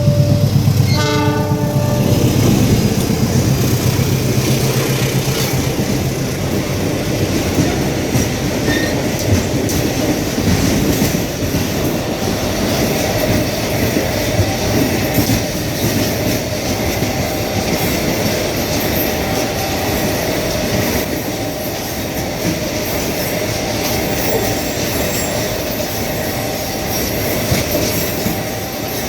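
A train horn sounds and stops about a second or two in. Then the train runs along the rails with steady wheel and track noise, and short wheel squeals recur every couple of seconds in the latter half.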